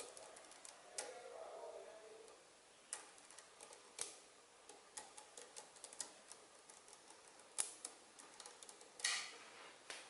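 Small magnetic metal balls clicking as they snap into place one by one on a sheet of magnetic balls: irregular light clicks with a few louder snaps, and a short clattering cluster near the end.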